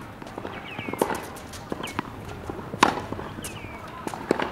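Tennis ball strikes on a hard court: three sharp, separate hits about a second and a half apart, the loudest near the middle.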